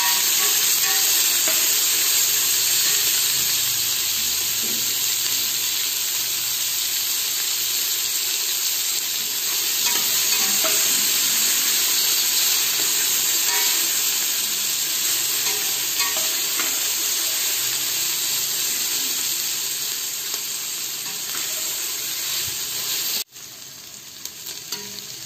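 Sliced onions sizzling steadily in hot oil in a pressure cooker pan while being stirred with a metal spatula, with faint scrapes of the spatula on the pan. The sizzle drops suddenly to a much quieter level near the end.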